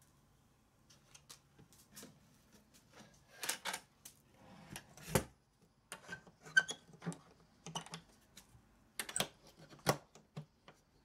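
Hands handling a plywood cat house: irregular knocks, taps and light clicks of wood and a small metal fitting, with short quiet gaps between them.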